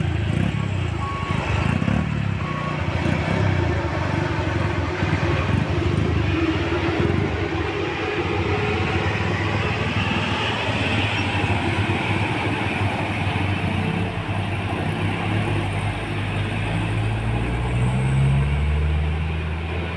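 A Mercedes-Benz OH 1626 bus's diesel engine running steadily under load as the bus crawls around a steep hairpin bend. Near the end a heavy engine rises in pitch as it revs up.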